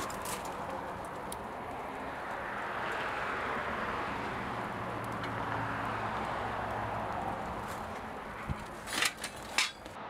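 Molten bronze being poured from a crucible into a steel ingot mold over a steady rushing noise, with a few sharp metal clanks near the end.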